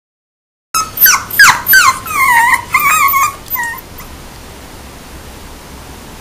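Havanese puppy whining: a quick run of high yelps that each fall sharply in pitch, then longer wavering whines and one short last cry, stopping about four seconds in. A steady hiss remains after.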